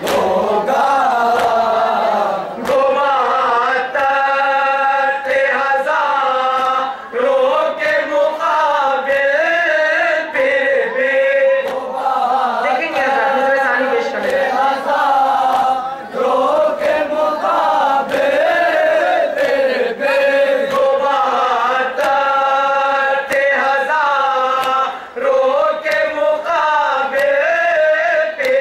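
Shia nauha (lamentation) chanted in Urdu by a group of young men into a microphone: a lead reciter sings each line and the group joins in unison. Hands slapping on chests (matam) keep a steady beat of about one slap a second.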